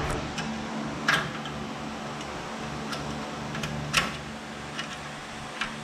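A few sharp clicks and knocks from hands handling parts, about a second in, at four seconds and near the end, over a steady low hum.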